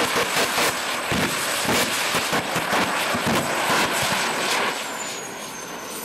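Jet engine on a wheeled portable toilet running hard: a loud rush with an uneven crackle and a high, steady whine. About five seconds in, the whine drops in pitch and the sound fades.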